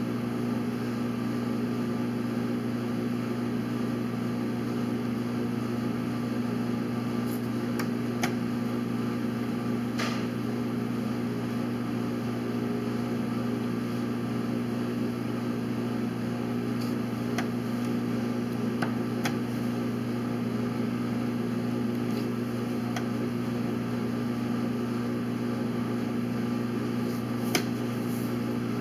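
Steady low room hum, with a handful of sharp clicks and taps from the chess game (pieces set down or the clock pressed) scattered through it, the sharpest near the end.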